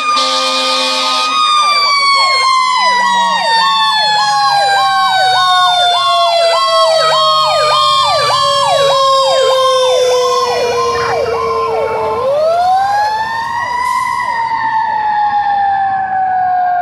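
Fire truck sirens: a siren tone winds slowly down over about ten seconds, is spun back up near the end and starts falling again, while a second siren yelps in fast repeating sweeps over it. A horn blast cuts off about a second in.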